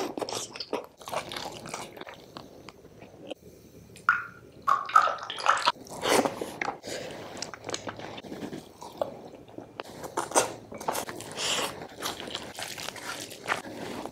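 Close-miked eating by hand: wet chewing, lip smacks and sucking of curry from the fingers, with crisp bites, coming irregularly and close together throughout.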